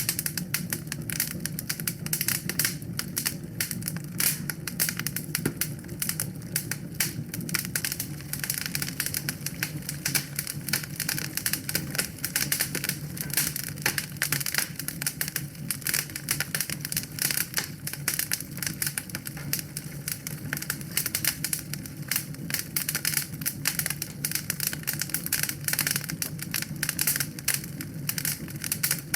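Wood fire in a fireplace crackling: a dense, irregular stream of sharp snaps and pops over a steady low rumble of the flames.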